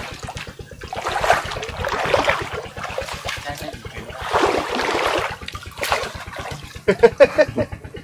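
Water splashing and rushing in several swells over a small engine running steadily.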